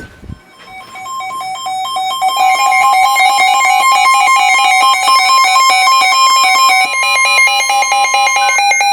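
Electronic alert tones: a shrill run of rapidly alternating pitches that builds in level over the first two seconds or so and then holds steady.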